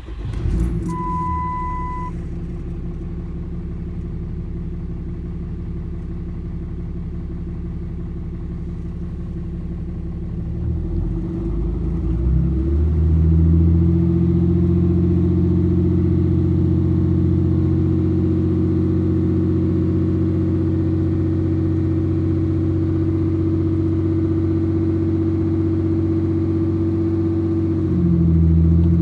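2009 Ram 3500's 6.7 Cummins diesel, with a 5-inch turbo-back exhaust, MBRP Quiet Tone muffler and FTE resonator, heard from inside the cab. It starts, idles for about twelve seconds, then is raised to a higher steady speed held for about fifteen seconds before dropping back toward idle near the end. A short beep sounds about a second in.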